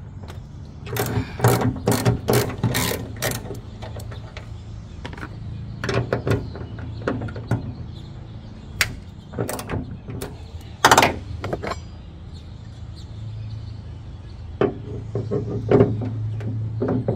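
Ratchet wrench clicking in short bursts of rapid strokes as a 12 mm bolt is turned loose.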